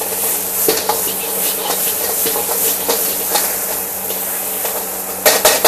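Chili paste and onions sizzling and hissing in a hot steel wok, sending up steam, while a metal ladle stirs and scrapes it with scattered clinks. A quick run of sharp ladle knocks against the wok comes near the end.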